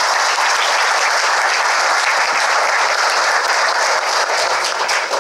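Audience applauding steadily, dying away at the end.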